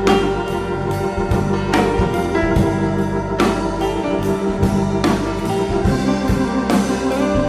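Instrumental break of a pop-rock song: sustained organ-like keyboard chords over a steady drum beat, with no singing.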